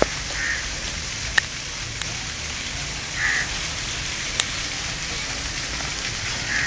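Steady outdoor background hiss with three short high calls about three seconds apart and two sharp clicks.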